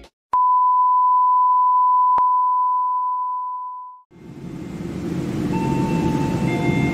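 Electronic beep: one mid-pitched pure tone, held steady for over three seconds and then fading out, with a faint click partway through. After it, a low outdoor background rumble fades in.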